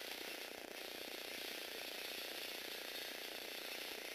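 Small electric gear motor and plastic gear train of a motorised Lego Technic robot running steadily as it drives along, a continuous mechanical whir of meshing gears.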